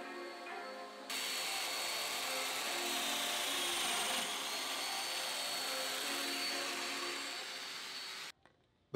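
Festool Domino joiner running as it cuts a mortise in a wooden rail. It starts suddenly about a second in with a steady high whine. The whine dips in pitch briefly midway, recovers, and the tool cuts off abruptly near the end.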